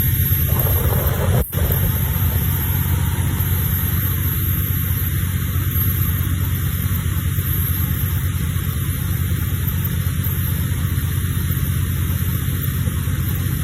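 Boat engine running steadily at speed, a low rumble under a steady hiss of wind and water rush. The sound dips out for an instant about a second and a half in.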